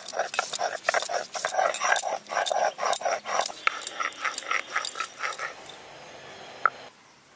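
A hand-held grinding stone rubbed back and forth over a flat stone slab (sil-nora), crushing ginger into paste. It makes rhythmic rasping strokes at about four a second, which stop about five and a half seconds in, followed by a single click.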